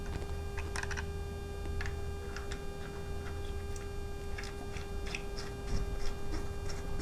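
Scattered light clicks and taps of small metal hardware and hand tools being handled while fitting brake line fittings, over a steady electrical hum.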